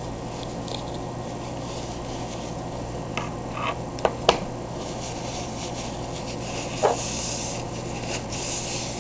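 Paper towel rubbing and rustling as hands are wiped, with a few light clicks and knocks from about three seconds in, and another near seven seconds, as a small plastic jar and its lid are handled and set on the counter.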